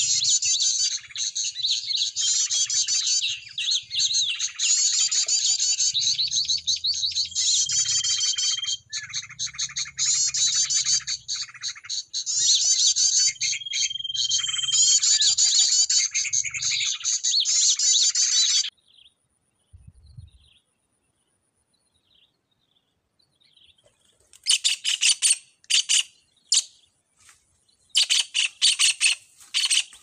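Recorded bird-call lure for trapping sunbirds ('kolibri'), played loud: a dense, rapid stream of high chirps and trills that cuts off abruptly about two-thirds of the way through. After a few seconds of quiet, a run of sharp, harsh bird calls comes near the end.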